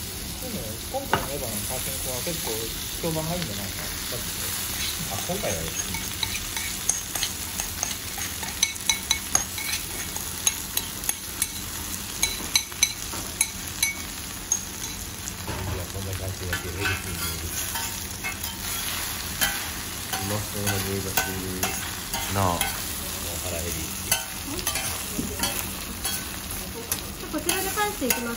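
Negiyaki batter with chopped green onions sizzling on a hot steel teppan griddle, with frequent sharp clicks and scrapes of a metal spatula on the plate, densest about a third of the way in.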